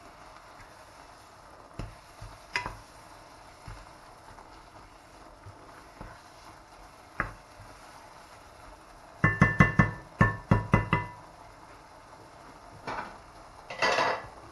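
Wooden spoon stirring in a nonstick pot of spinach and prawns, with scattered light knocks. A little past halfway comes a quick run of about eight loud, ringing taps of the spoon on the pot, and near the end a short clatter.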